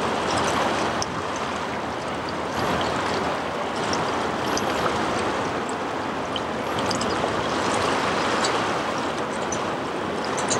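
Steady rush of river water, the wash of a loaded push-tow barge on the move, with brief faint high chirps scattered through.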